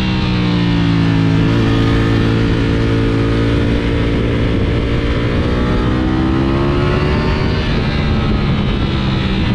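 Ducati Panigale V4 SP2's V4 engine pulling under load. Its pitch climbs slowly, falls sharply at an upshift about three quarters of the way through, then climbs again.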